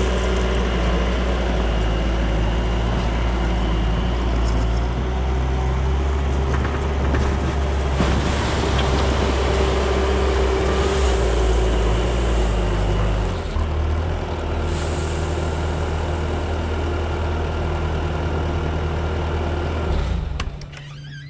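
Bobcat T595 skid steer's diesel engine running steadily under work. Its pitch and loudness change about two-thirds of the way through, and it drops away sharply just before the end.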